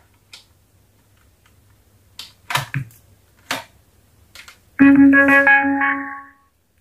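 A few faint clicks and knocks, then, nearly five seconds in, a bright electronic chime of several held tones lasting about a second and a half from a small 4-ohm 3 W speaker: the Bluetooth module of a home-built transistor mini amplifier playing its power-on prompt as it receives power.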